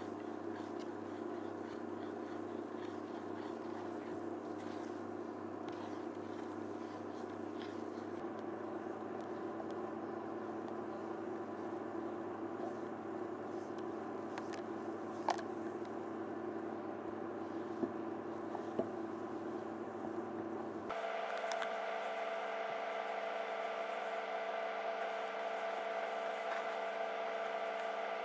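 Induction hob humming steadily under a saucepan, while a silicone spatula stirs thickening milk custard and lightly scrapes the pan, with a few small clicks. The hum's pitch changes suddenly about three-quarters of the way through.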